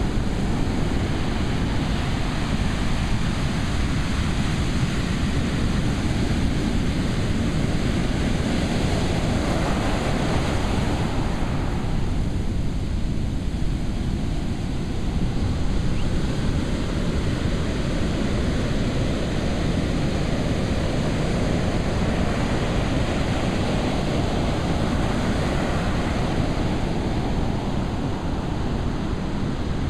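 Ocean surf: rows of waves breaking and washing in, a steady, dense wash of noise heaviest in the low end.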